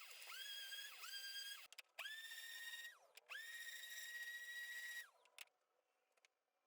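Cordless drill motor whirring in trigger pulses, each spinning up quickly to a steady high whine and winding down on release. There are three short pulses, then two longer runs, the last stopping about five seconds in.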